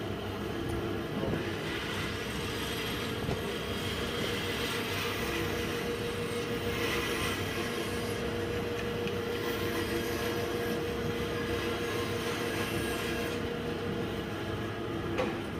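Vertical bandsaw running steadily with a constant hum while its blade cuts a wooden board.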